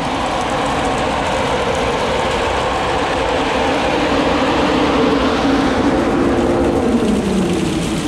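Grain storage bin aeration fan running loud and steady, a rushing noise with a hum over it. Near the end the hum drops in pitch as the fan starts spinning down after being switched off.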